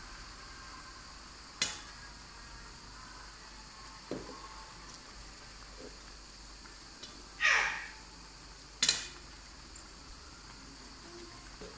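A metal spoon stirring a pan of cooking soup, knocking and scraping against the pan four times, over a steady sizzling hiss from the pan on the heat. The loudest knocks come about two-thirds of the way through.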